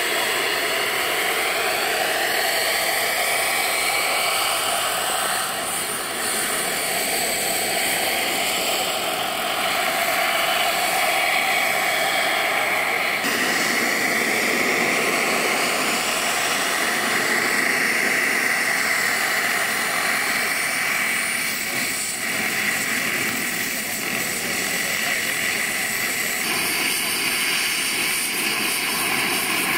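Small gas turbine engine of a radio-controlled model helicopter running with a steady jet whine and rushing hiss, pitch gliding up and down as the helicopter flies about. The sound changes abruptly about halfway through and again near the end.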